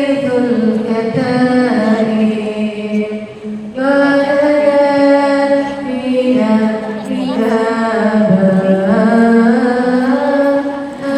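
A solo woman's voice chanting devotional lines, holding long, steady notes with gliding ornaments between them and pausing for breath about three and a half seconds in.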